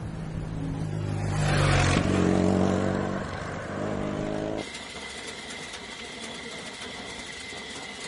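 A motor vehicle engine running, with a clear pitched drone that stops abruptly a little past halfway. A quieter, steadier noise with a thin high whine follows.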